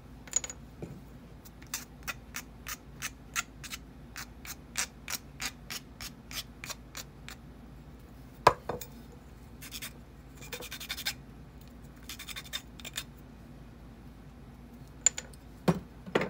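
Flat metal hand file rasping across the sawn end of a short wooden dowel piece in quick strokes, about three a second, smoothing the cut. A sharp knock comes about eight seconds in, then a few longer strokes, and a few clicks near the end.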